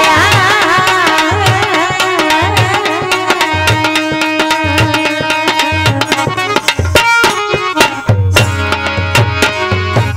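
Rajasthani devotional bhajan played live on harmonium with a hand drum keeping a regular beat. A wavering singing voice rides over it for the first few seconds, and the drumming gets busier about eight seconds in.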